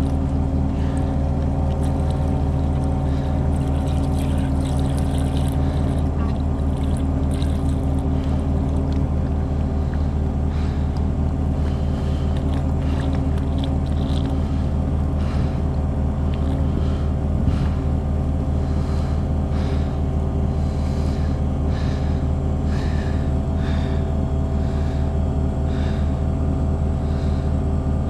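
An engine idling steadily, with light clicks and knocks of handling over it in the second half.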